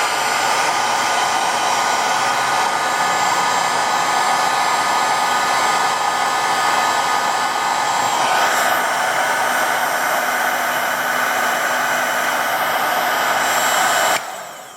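Hot-air blower running steadily: a loud rush of air with a steady motor whine, heating the adhesive under a phone's rear camera lens glass to loosen it. It switches off abruptly near the end.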